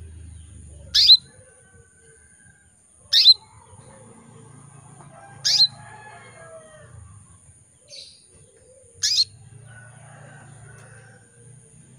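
Female canary giving short, sharp calls, four loud ones about two to three seconds apart, each a quick downward-sweeping note. These are the calls of a hen in breeding condition calling to a male.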